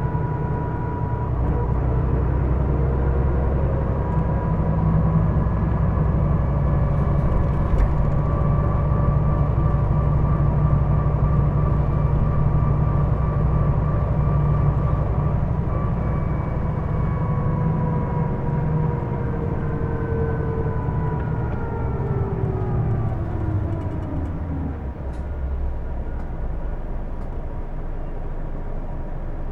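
Interior sound of a Hino Blue Ribbon II diesel city bus under way: low engine and drivetrain rumble with a clear whining tone, the abnormal noise this bus is known for. The whine holds steady, then falls in pitch over a few seconds near the end as the bus slows, leaving a lower, steady rumble.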